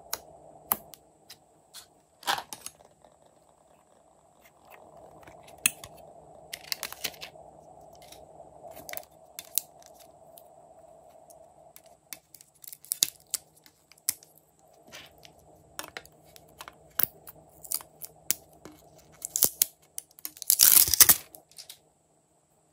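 Hands squishing glossy slime in a glass bowl, then handling and opening a plastic toy makeup palette: scattered sharp clicks and taps over a faint steady hum, with one louder rustling burst of about a second near the end.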